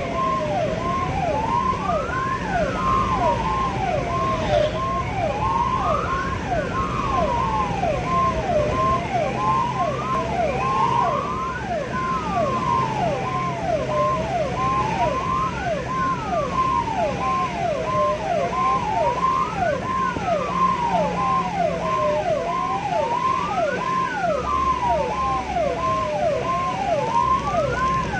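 Ambulance siren sounding while the ambulance drives: a slow wail that rises and falls about every four seconds, layered with a fast yelp of short falling notes and beeps about twice a second, over engine and road noise.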